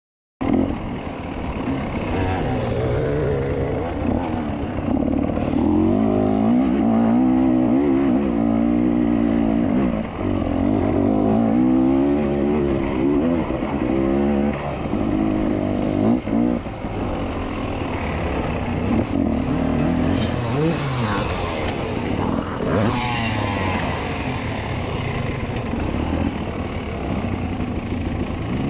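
Off-road dirt bike engine running hard on a forest trail, its pitch rising and falling again and again with the throttle as the rider works through the single track.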